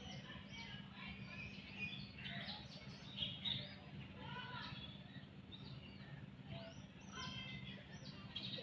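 Birds chirping and calling, many short high calls and quick whistled glides overlapping, over a steady low hum.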